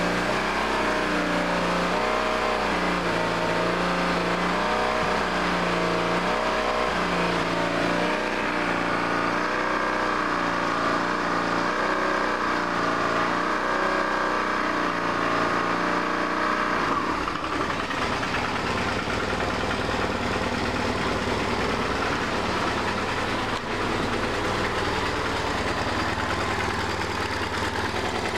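BMW R1150RT's boxer twin engine held at raised revs, around 3,500 rpm, while its throttle bodies are balanced, the pitch wavering up and down every second or so. About 17 seconds in it drops back to a lower, rougher idle.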